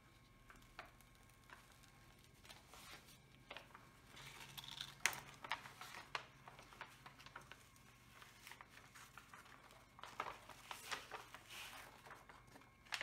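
Faint rustling and crinkling of a diamond-painting canvas's protective release sheet being handled and peeled back, with scattered light ticks. It gets busier about four to six seconds in and again around ten to twelve seconds.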